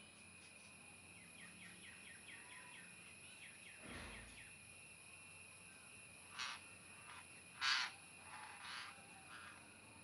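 Faint natural ambience: a steady high insect drone, a quick run of short chirps at about four a second, a dull low thump about four seconds in, then several short harsh bursts in the second half, the loudest a little before eight seconds.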